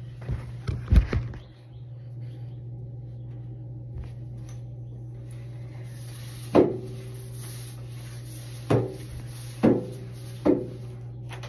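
A phone being handled and set down with a few thumps about a second in, then a mop knocking sharply four times against the floor and the vanity during floor mopping, over a steady low hum.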